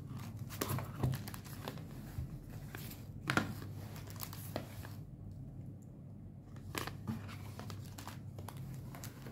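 Stiff illustration postcards being picked up, slid and shuffled by hand: light paper rustling with a few sharp card flicks, the loudest about three seconds in.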